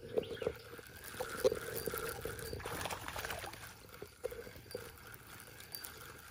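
Fishing reel being cranked with soft, irregular clicking, and light splashing of the lure or a small largemouth bass on the pond surface.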